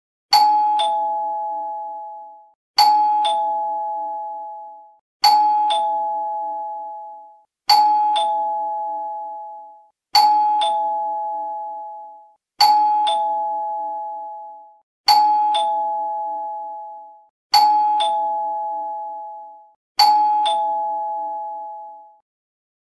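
Two-tone doorbell chime sounding 'ding-dong' nine times in a row, about every two and a half seconds. Each ring is a higher note followed by a lower note, and each fades away before the next one.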